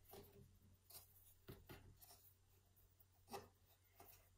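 Faint rustling of cotton warp-spacer yarn being handled and tied into a simple knot on a frame loom: a few soft brushes, the clearest about three seconds in.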